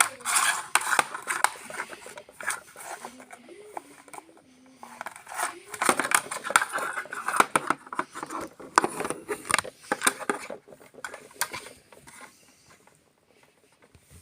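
Robot vacuum cleaners sweeping up paper confetti: dense, irregular crackling and clicking as the brushes and intakes catch the bits. A short wavering tone comes through about three to five seconds in, and the crackle thins out and quietens near the end.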